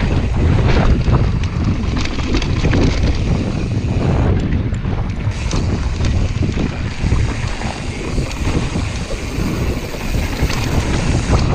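Wind buffeting the microphone of a camera on a mountain bike riding fast down a dirt trail, a steady loud rumble with tyre noise on the dirt. Frequent short clatters and knocks come from the bike over bumps.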